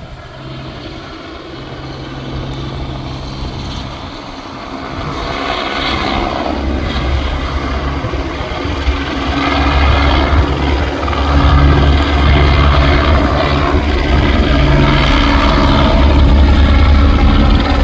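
Helicopter engine and rotor running, growing steadily louder.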